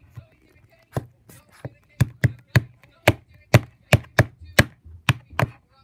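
Small plastic toy dolls tapped and hopped against a hard tabletop: a string of about fourteen sharp taps at roughly two to three a second, loudest in the middle.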